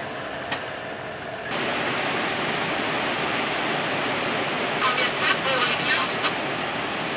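Water rushing and churning as it pours through the lock gate into the lock chamber, filling the lock; the rushing gets louder about one and a half seconds in. A few short high-pitched sounds cut through it about five to six seconds in.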